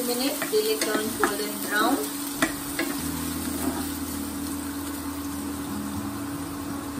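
Chopped onion sizzling as it fries in hot oil in a non-stick wok, stirred with a spatula that clicks and scrapes against the pan a few times in the first couple of seconds. A steady low hum runs underneath, stronger from about three seconds in.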